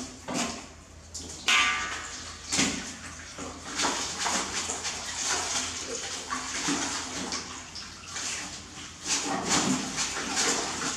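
Clothes being hand-washed in a metal basin of soapy water: irregular splashing and sloshing as the wet cloth is lifted, rubbed and scrubbed.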